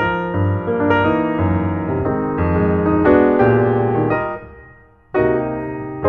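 Piano music: a phrase of notes and chords that fades away about four seconds in, then a new chord struck about five seconds in.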